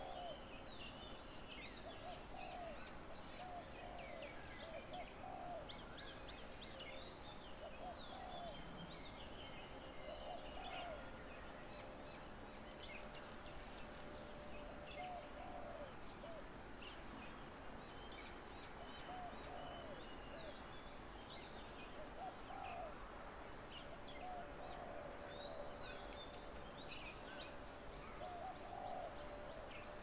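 Birds calling: a low hooting or cooing call of two or three short notes, repeated every few seconds, over frequent short high chirps and twitters. A faint steady high-pitched drone runs underneath.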